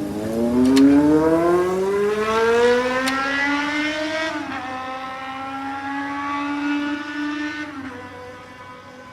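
E235-series electric train pulling away under power, its traction inverter and motors whining in a stack of tones. The whine rises steadily in pitch for about four seconds, drops a step and holds level, then drops again and fades near the end.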